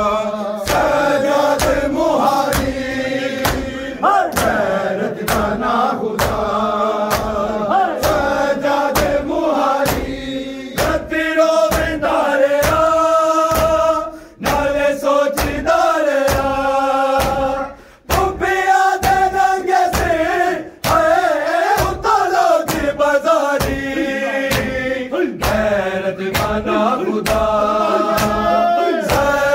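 A group of men chanting a Shia noha in unison, with a steady beat of chest-beating (matam) thumps under the singing. The chant breaks off briefly twice in the middle.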